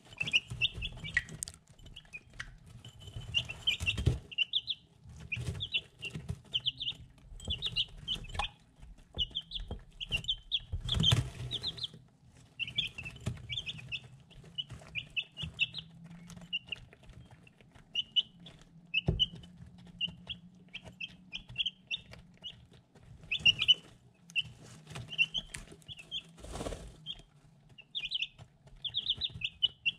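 Three-week-old chicks peeping, with quick runs of short high chirps throughout, while they peck feed from a ceramic dish. A few louder knocks and taps, from beaks striking the dish and the birds jostling, stand out every few seconds.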